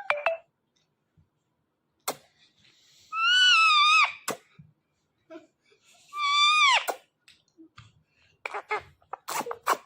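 Ringneck parrot giving two drawn-out, wavering calls about a second long each, the second dropping sharply in pitch at its end. Sharp clicks come between the calls, bunched near the end.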